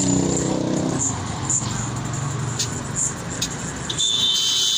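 Road traffic noise, with a high steady whine starting about four seconds in.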